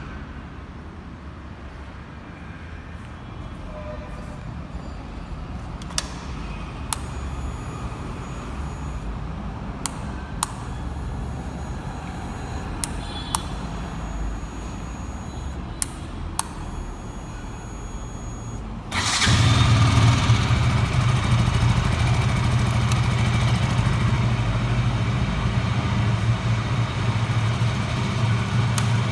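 Low rumble with scattered sharp clicks, then about two-thirds in a KTM 200's single-cylinder engine on its stock exhaust starts and settles into a steady idle, which is the loudest sound.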